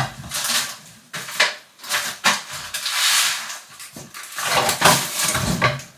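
Objects being handled: a few short sharp knocks and clatters, with swells of rustling noise between them.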